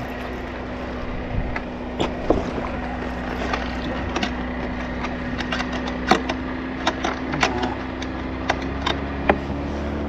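Scattered knocks and clicks of handling on and around a jet ski moored at a dock, over a steady low motor hum.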